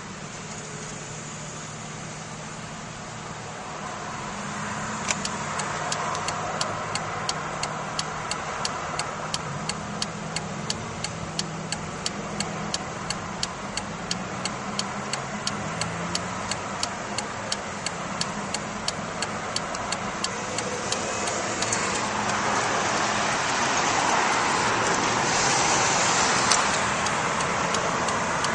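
Car cabin noise at highway speed: steady tyre and engine sound, with a turn signal ticking about twice a second from about five seconds in until about twenty-two seconds. The road noise grows louder over the last few seconds, with one sharp knock near the end.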